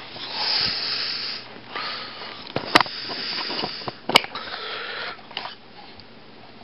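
Breathy noise close to the microphone as the camera is handled against a face, with two sharp clicks, the first nearly three seconds in and the second about a second and a half later.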